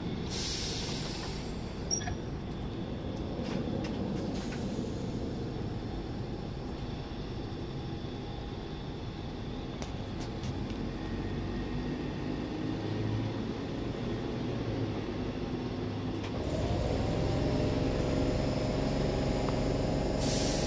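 Electric multiple unit standing at the platform with its doors open, its onboard equipment humming steadily. There is a short hiss of air right at the start. About sixteen seconds in, a machine on board starts up with a brief rising whine that settles into a louder steady multi-tone hum.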